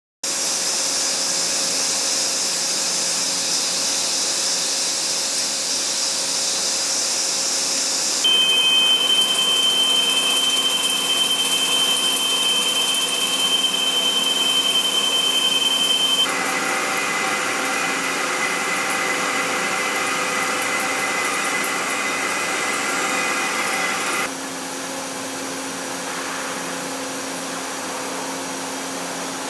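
CNC machine running: a steady machining noise with a high-pitched whine. The whine's pitch and the overall tone change abruptly three times.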